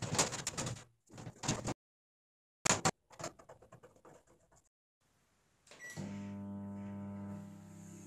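Screwdriver and hand clatter on the sheet-metal cabinet of a Tarrington House MWD5130 microwave oven as its cover is screwed back on. About six seconds in, a click, and the microwave starts running with a steady hum that eases slightly near the end.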